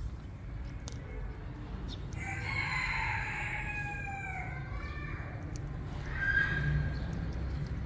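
An animal's drawn-out call, falling in pitch, about two seconds in, and a shorter call near the end, over a low steady rumble.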